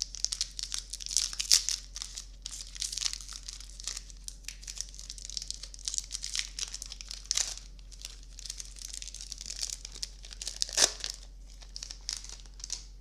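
A Magic: The Gathering booster pack's wrapper being crinkled and torn open by hand, a dense run of crackling and rustling with one sharper crackle about eleven seconds in.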